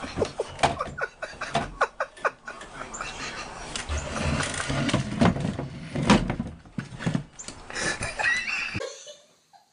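A cat scrambling and skidding on a hardwood floor around a wooden chair: a rapid run of claw scrabbling, knocks and bumps that stops abruptly near the end.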